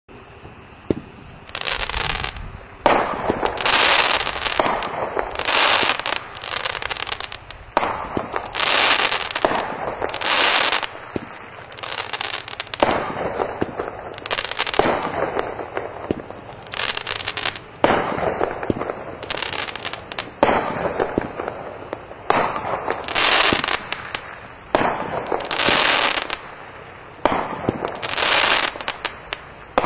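A 16-shot consumer fireworks cake firing its shots one after another, about one every one to two seconds. Each shot is a loud burst lasting around a second, full of small crackling pops.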